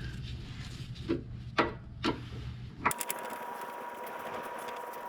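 Light clicks and ticks of a screwdriver working the Phillips-head bolts that hold a snowblower carburetor, three clear clicks about half a second apart over a steady low hum. About three seconds in the sound changes abruptly to a steady hiss with faint quick ticking.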